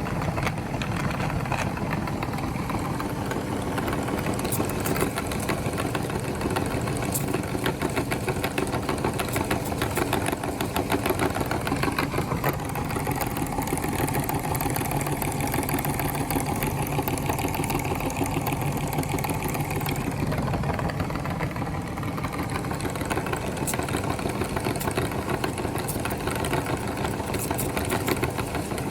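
Electric meat grinder motor running steadily under load, with a fast, even rattle as food is forced through it.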